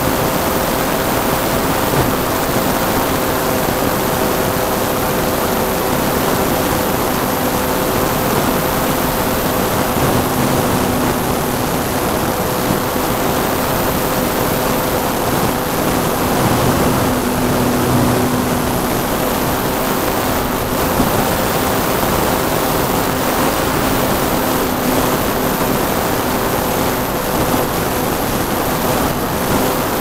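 Wind rushing over the microphone of a radio-controlled model plane in flight, with the steady hum of its motor and propeller underneath.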